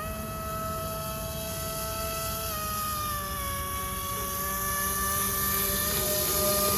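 Roxxy 36-42 930kv brushless motor spinning a three-blade 9x5 propeller inside a prop ring on an RC airboat, running at steady throttle with a steady high whine. The pitch dips slightly about two and a half seconds in, and the sound grows a little louder near the end.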